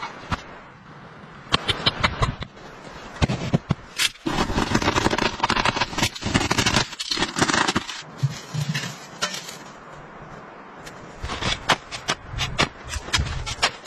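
Hand-tool work in snow and frozen earth: sharp chops and shovel scrapes. There are about four seconds of continuous rasping in the middle, and quick shovel strikes near the end.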